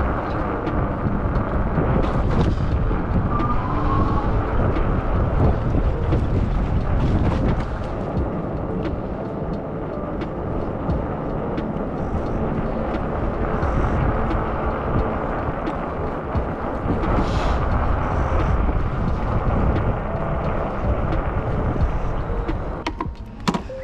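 Wind buffeting the microphone of a moving bicycle, with rumbling road noise. Near the end the wind noise drops away and a few sharp clicks follow as the bike comes to a stop.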